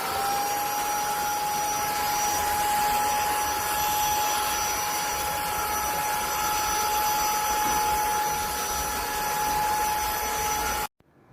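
Airbot Hypersonics Max cordless stick vacuum cleaner running: a steady high-pitched motor whine over rushing air, cutting off suddenly near the end.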